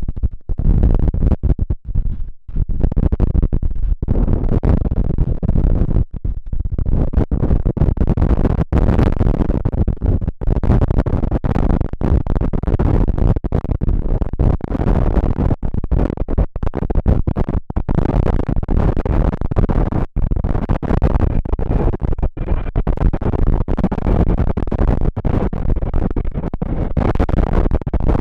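Strong gusty wind buffeting the microphone: a loud, rumbling rush that cuts out momentarily many times.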